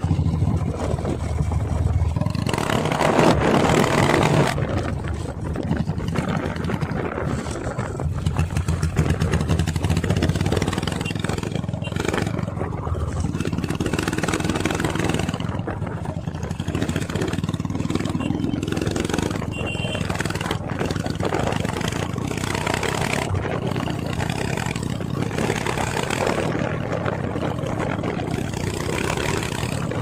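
Motorcycle engine running steadily under way, with wind rushing over the microphone and gusting louder a few times.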